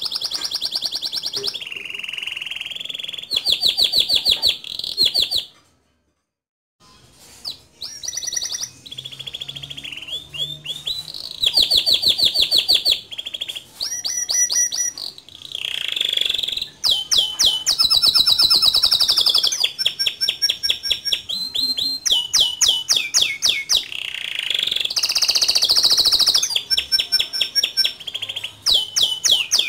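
Male domestic canary singing at length: fast trills of rapidly repeated notes that roll from one phrase into the next, several pitched high, with about a second of silence some six seconds in.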